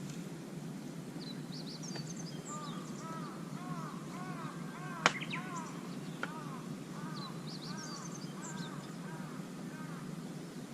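Birds calling in quick series of short, arched repeated notes, with fainter high chirps above, over a steady low background hum. A single sharp crack about five seconds in is the loudest sound, with a smaller click a second later.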